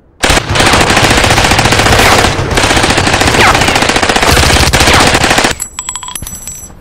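Sustained automatic gunfire, loud and rapid, with a brief break a little over two seconds in. It stops about five and a half seconds in, leaving a few short ringing clicks.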